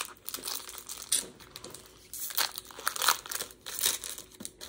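Foil wrapper of a Pokémon trading card booster pack crinkling as it is handled and torn open, an irregular run of crackles.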